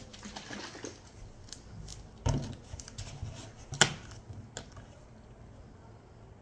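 Plastic drink bottle being handled and its screw cap twisted open: a dull knock about two seconds in, then a few sharp plastic clicks from the cap, the sharpest near four seconds.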